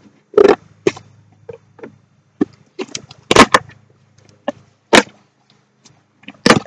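Packaging being handled and torn open: a string of sharp knocks and crackles, the loudest about three and a half and five seconds in, over a low steady hum that fades out partway through.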